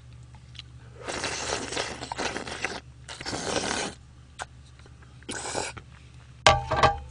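A person slurping jjajangmyeon noodles from a bowl: two long slurps and a shorter third one. A brief, louder vocal noise comes near the end.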